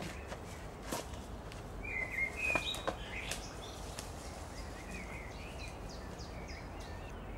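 Woodland ambience: birds chirping in short bursts, mostly about two to three seconds in and again around five seconds in, over a steady low hum. A few sharp clicks sound about one, two and a half, and three seconds in.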